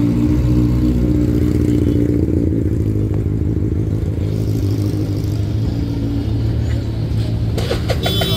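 Benelli 600i inline-four motorcycle engine running steadily at a fairly even speed through its aftermarket exhaust. A few sharp clicks come in near the end.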